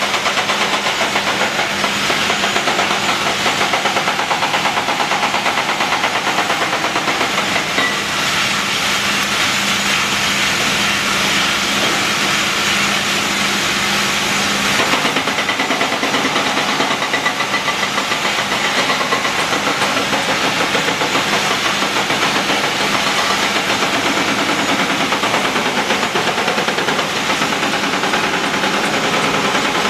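Caterpillar 345CL excavator's diesel engine running steadily under load, with a steady hiss over it.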